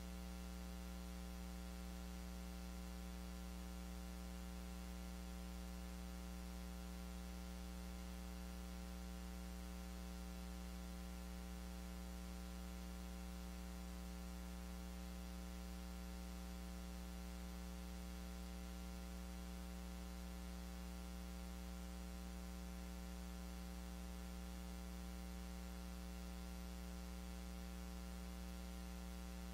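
Steady electrical mains hum with a faint hiss behind it.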